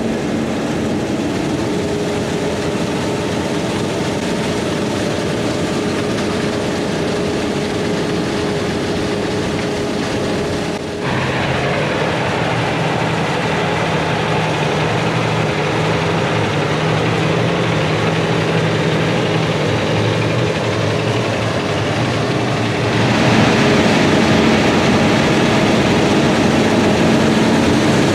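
Heavy diesel farm machinery running with a steady engine drone. The sound changes abruptly twice, about eleven seconds in and again near the end, each time to a different machine or position, and it grows louder at the second change.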